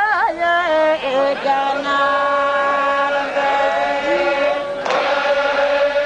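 Zikri chaugan devotional chanting: voices sing long held notes together after a wavering, ornamented line at the start, and a new phrase breaks in sharply about five seconds in.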